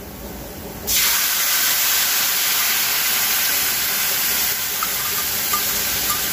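Blended spice paste poured into hot oil in a kadai, setting off a loud steady sizzle that starts suddenly about a second in. A few faint ticks come near the end.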